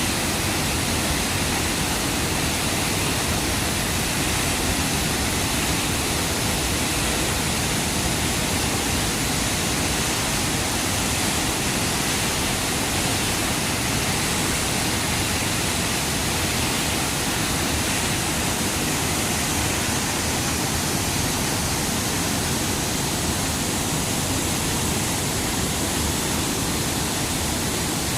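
Steady, even rushing of water, unbroken and without any distinct events.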